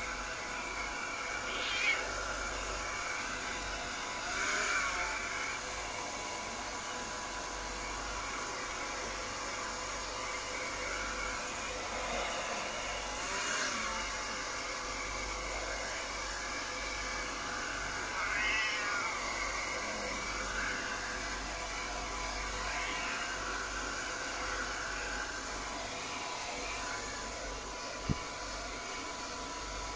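Handheld hair dryer running steadily while a wet Persian kitten meows several times in short calls. There is a sharp click near the end.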